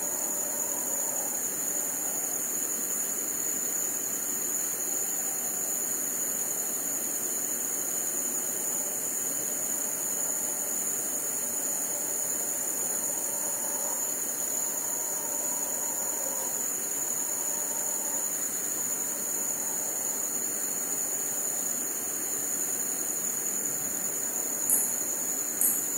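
Crickets trilling in a steady, high, continuous chorus, with faint distant howler monkey calls wavering underneath at times. Two short, sharp high chirps stand out near the end.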